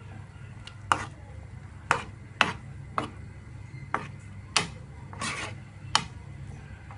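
A spoon stirring thick curry gravy in a pan, knocking and scraping against the pan about eight times, once in a longer scrape about five seconds in, over a low steady hum.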